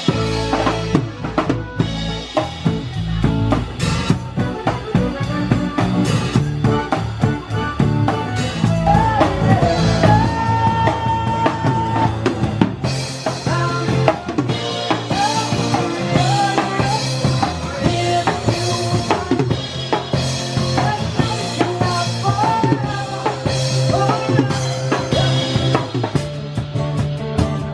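Live acoustic rock band playing: a drum kit with snare, bass drum and cymbals drives the beat under acoustic guitar. A melody line comes in about nine seconds in.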